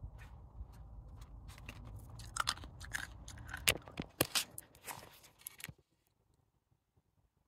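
A person chewing and crunching food close to the microphone, with a run of sharp crackles and clicks. It cuts off abruptly to dead silence about six seconds in.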